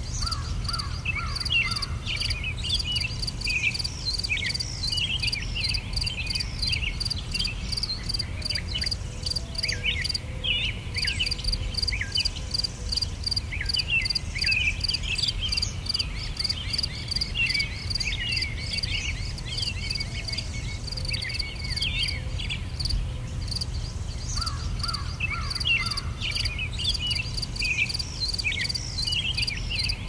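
Nature soundscape: a steady, fast-pulsing insect chorus like crickets, with frequent short bird chirps and calls over it and a low steady rumble beneath.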